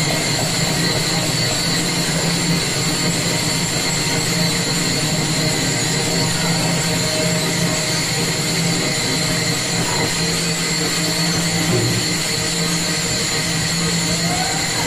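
Devotional bhajan music carried by many pairs of small hand cymbals (taal) played together in a continuous jingling wash, over a steady low sustained tone.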